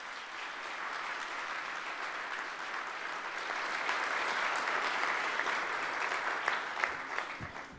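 Audience applauding, swelling through the middle and dying away near the end.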